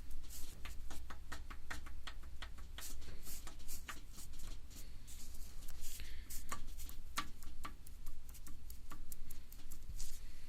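Engine running with a low steady hum and sharp knocks at uneven intervals, several a second: the knocking of piston slap.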